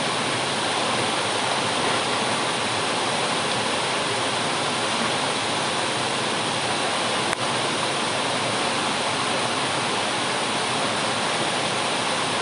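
Steady rush of water from a fast-flowing river and streams of water pouring from pipes into it, with one brief click about seven seconds in.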